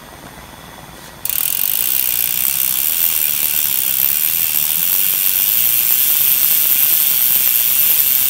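Mountain bike rear hub freewheeling: its pawls click rapidly over the ratchet in a steady, high-pitched buzz that starts suddenly about a second in.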